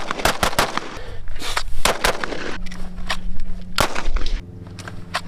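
A string of pistol shots fired outdoors, some in quick pairs and runs, a dozen or so in all. A steady low tone comes in beneath them about two and a half seconds in.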